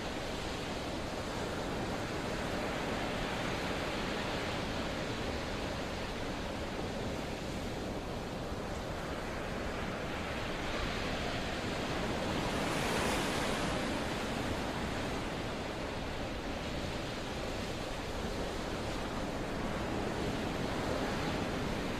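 Steady rush of sea waves and wind, swelling briefly a little past the middle.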